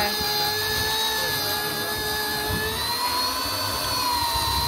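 Electric fishing reel's motor whining steadily as it winds a hooked fish up on a heavily loaded line, the whine rising slightly in pitch a little past halfway.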